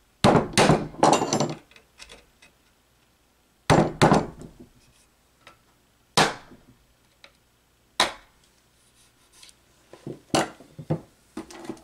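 Hammer striking a centre punch against the end of an electric motor's housing to make alignment marks, each blow a sharp metallic knock. Three quick blows come first, two more about four seconds in, then single blows about six and eight seconds in, with lighter knocks near the end.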